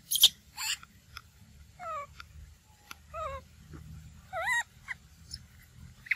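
Young macaque giving short, wavering high calls several times, each one bending up and down in pitch, with a few sharp clicks in the first second.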